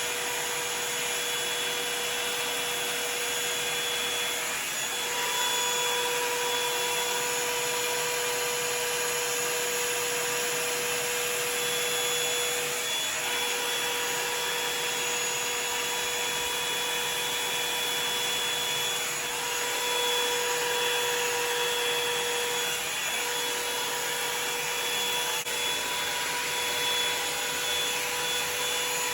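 Revlon One Step Volumizer hot-air brush dryer running, most likely on its high setting: a steady rush of blown air with a motor hum. The hum fades and returns a few times as the brush is worked slowly through the hair.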